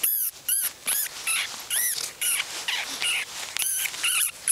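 Common vampire bat squealing in distress while it is held and untangled from a mist net: a rapid series of short, high-pitched squeaks, about three a second, each rising and then falling in pitch.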